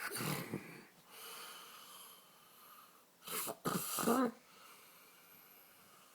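A sleeping man snoring: a loud snort at the start, a long softer breath, then the loudest snore, in two parts, about three and a half seconds in.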